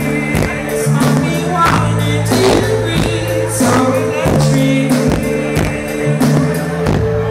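Live band playing a slow song: sustained keyboard and bass chords under a steady drum beat, with a sung vocal line over the top.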